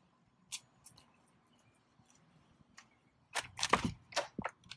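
A glass entrance door being opened: a couple of light clicks, then near the end a quick cluster of sharp clacks and knocks from the handle, latch and door.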